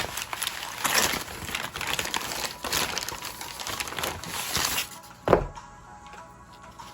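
Crinkling and rustling handling noise with many small crackles, then a single sharp thump about five seconds in.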